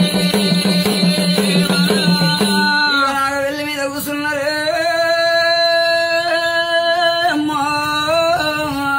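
A man sings a Telugu devotional folk song, accompanied by a quick, steady beat on a double-headed barrel drum hung with brass bells and played with a stick. About three seconds in the drumming drops away, and he holds one long sung note with a wavering pitch, then ends the phrase abruptly.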